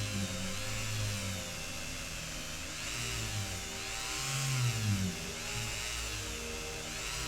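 A small electric power tool running, its pitch rising and falling as it works.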